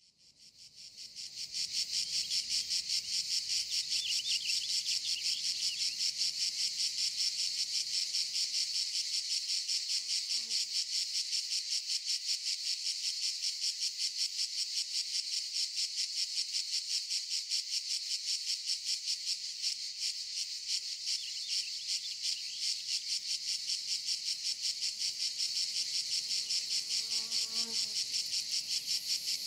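Cicadas singing in a steady, fast-pulsing chorus that fades in over the first two seconds and then holds without a break.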